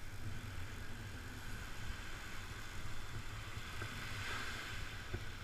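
Ocean surf washing onto the beach: a steady hiss that swells about four seconds in, with a low rumble of wind on the microphone.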